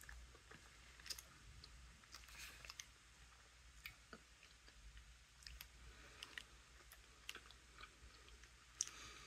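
A person chewing a bite of soft-baked peanut butter oat cookie: faint, irregular little mouth clicks, one a bit louder near the end.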